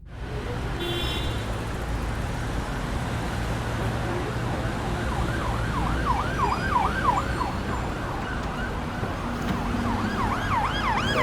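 Emergency vehicle siren on a yelp setting, its pitch sweeping rapidly up and down about three times a second, over a steady rumble of street traffic. The siren starts about five seconds in, breaks off briefly, and comes back louder near the end.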